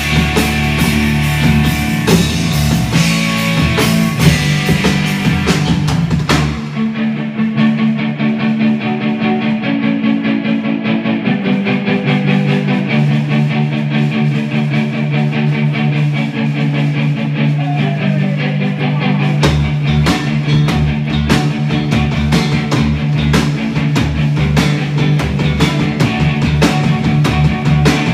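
Live rock band playing an instrumental section on electric guitars, bass and drums, with no vocals. About six seconds in, the drums and the deep low end drop out, leaving the guitars, and they come back in about thirteen seconds later.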